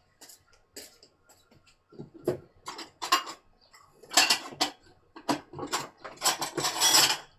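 Irregular clicks and clattering of small hard objects being handled, with denser bursts of clatter and rustle about four seconds in and again near the end.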